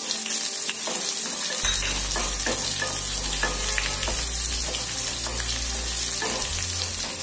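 Chopped onion frying in hot coconut oil with spluttered mustard seeds and cumin: a steady sizzle with many small crackles.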